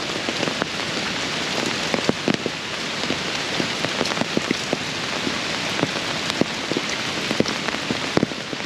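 Steady rain falling, an even hiss with many individual drops striking close to the microphone as sharp, irregular ticks.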